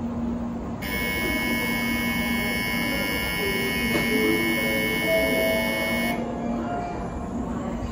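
Electronic station departure bell ringing on the shinkansen platform, a steady shrill ring that starts about a second in and cuts off suddenly after about five seconds, over the low steady hum of the train standing at the platform.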